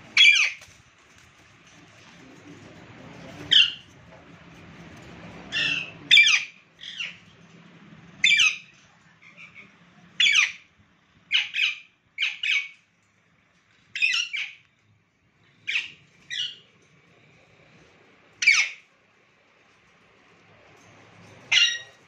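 Caged Alexandrine parakeets squawking: about sixteen short, loud, harsh calls at irregular intervals, some in quick pairs.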